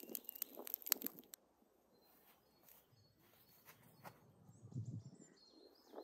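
Wood fire crackling with many sharp pops inside a perforated steel washing-machine drum; it cuts off about a second and a half in. Then it is quiet, with a few faint ticks, a low rumble, and birds chirping near the end.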